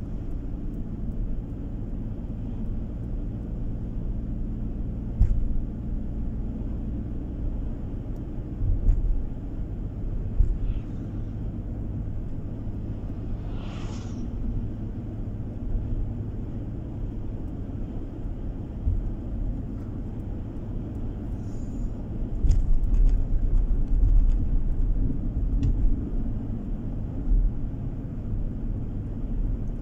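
Steady low road and engine rumble heard from inside a moving car, with occasional short thumps. There is a brief rushing whoosh about halfway through, and the rumble grows louder and rougher for a few seconds after about two-thirds of the way.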